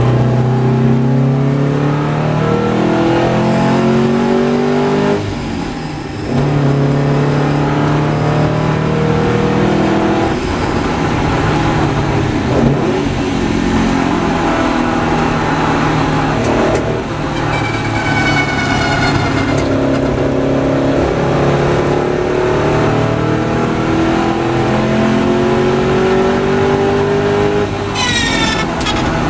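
Porsche 550 Spyder's four-cam flat-four engine heard from the open cockpit, pulling hard through the gears: the note rises in pitch, then falls back at each upshift, with a brief lift off the throttle about five seconds in. Twice, midway and near the end, a high thin whine rises over the engine.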